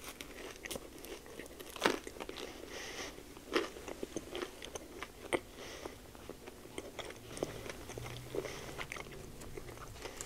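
Close-up biting and chewing of a blueberry pancake-wrapped sausage: wet mouth sounds broken by sharp clicks, the loudest about two seconds in.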